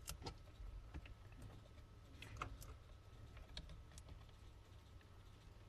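Faint, irregular small clicks and taps of tools and small parts against an aluminium water block and the laptop's internals as the block is fitted, a few of them a little louder about two seconds in.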